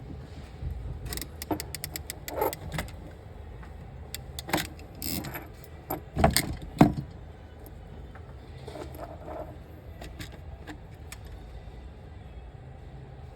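Hand crimp tool and small metal contact being handled: a run of quick clicks and light metallic rattles, loudest in two sharp clicks a little past the middle of the clip, over a steady low hum.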